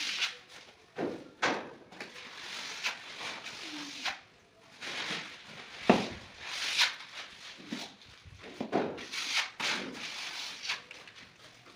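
Scraping of a trowel in tile adhesive on a wall, broken by several sharp knocks as tiles are pressed and tapped into place.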